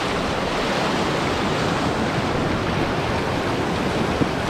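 Whitewater rapids rushing steadily around the raft.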